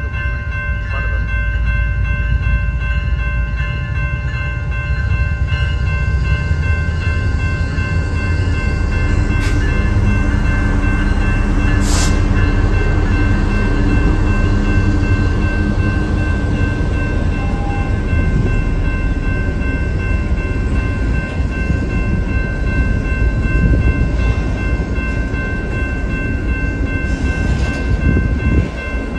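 Union Pacific freight train passing a grade crossing: a diesel locomotive rumbles by partway through, then open-top hopper cars roll past. The crossing's warning bell rings steadily the whole time.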